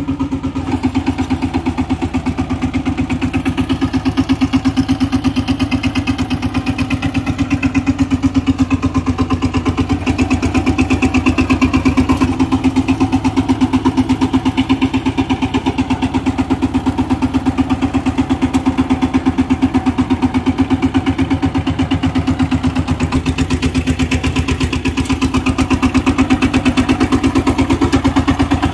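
Single-cylinder diesel engine of a walk-behind power tiller running steadily at a constant speed, a loud, rapid, even chugging.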